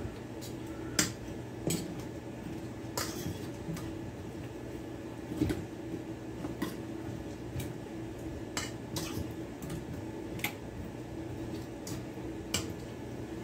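A metal fork stirring squash chunks through buttermilk in a stainless steel mixing bowl, clinking against the bowl in irregular strokes about once a second. A faint steady hum sits underneath.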